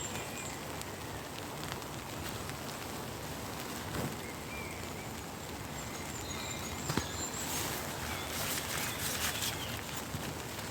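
Steady heavy rain falling, an even hiss, with a few short bird chirps over it. Two sharp knocks come about four and seven seconds in, followed by a short burst of rustling and crackling.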